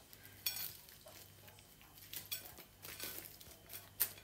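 A few light clinks of cutlery against a plate, spaced irregularly, with a brief ringing clink about half a second in and a sharper one near the end.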